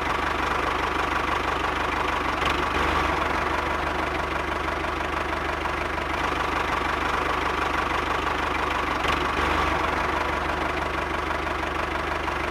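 Small electric motor of a homemade grass-cutting machine running steadily.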